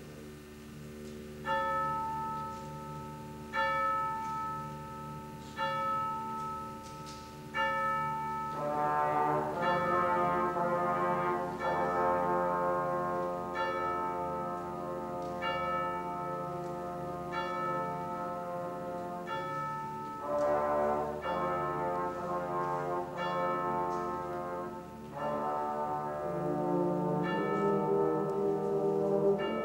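A wind band, brass to the fore, holding slow sustained chords while a bell is struck about every two seconds; the full band swells in with many more notes about eight seconds in and the bell strokes continue over it.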